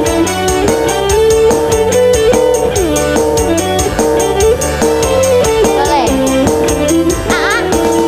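Dangdut band playing live: a held, bending melody line over fast, even percussion with a tambourine-like jingle.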